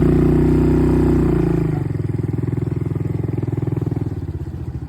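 ATV engine running steadily under throttle, then easing off about two seconds in to a quieter, evenly pulsing idle.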